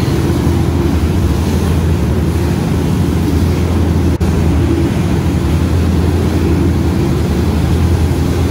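A boat's engine running with a steady, loud low drone, with a brief click and dip in level about four seconds in.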